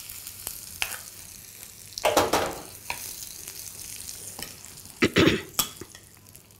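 Hot tempering oil with mustard seeds, urad dal, chillies and curry leaves sizzling on mashed pumpkin, the sizzle dying away, while a metal spoon stirs it in a glass bowl with scattered clicks and louder scrapes about two and five seconds in.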